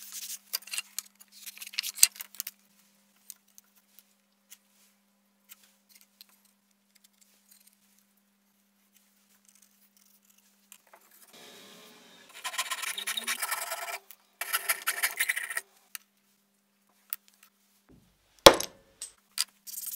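Sandpaper rubbing along a wooden strip in a few quick strokes, then a quiet stretch with faint ticks. About twelve seconds in, a saw rasps through a small wooden board in rapid strokes for a few seconds, and a single sharp knock near the end is the loudest sound.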